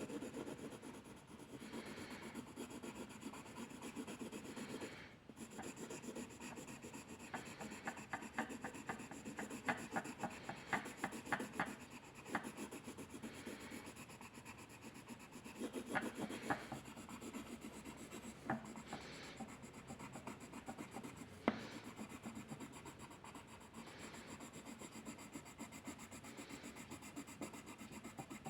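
A drawing tool scratching and rubbing across paper in continuous strokes. About a quarter of the way in comes a run of quick short strokes, roughly five a second, and near three quarters in there is a single sharp tap.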